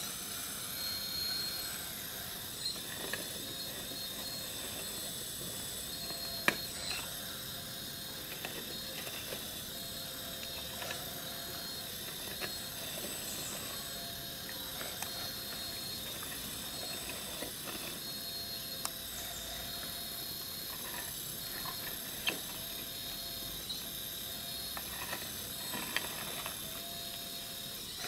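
Electric hydraulic pump of a scale RC hydraulic excavator whining steadily with high tones, a lower tone coming and going as its Primacon control valves are worked to dig. A few sharp clicks of the bucket and stones are heard over it.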